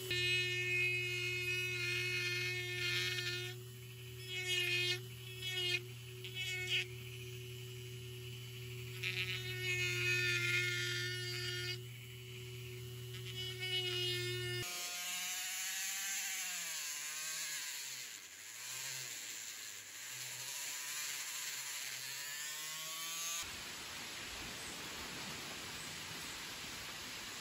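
Dremel rotary tool running with a high whine, its carving bit grinding into a small oak carving in spurts. After a sudden change the whine slides down in pitch and back up, then stops, leaving a steady hiss.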